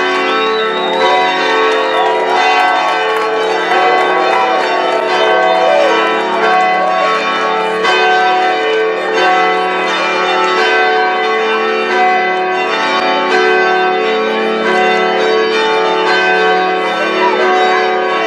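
Church bells ringing a continuous peal, many bells struck over and over so that their tones overlap. Voices rise over the bells in the first few seconds.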